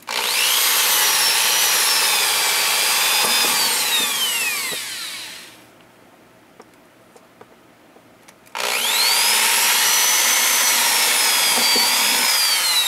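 Electric drill boring holes for pop rivets through a clear acrylic sheet on a plastic crate lid, in two runs of about five and four seconds. Each time the motor whine rises as it spins up and falls away as the trigger is released.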